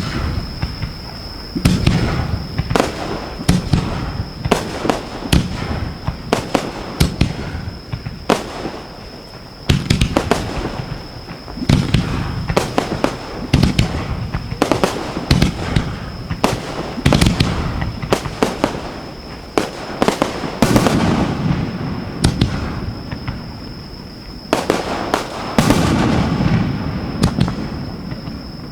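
Fireworks display heard from close to the launch tubes: a rapid, overlapping barrage of shells launching and bursting, sharp cracks over deep booms, coming in several heavier surges. A thin steady high tone sits underneath.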